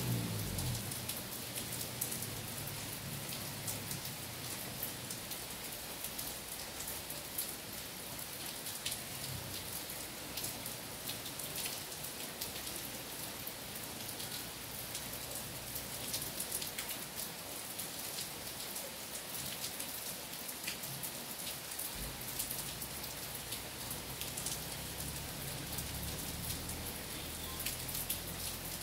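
Steady rain falling on trees and puddles: an even hiss dotted with many individual drops ticking. A low rumble joins about three quarters of the way through.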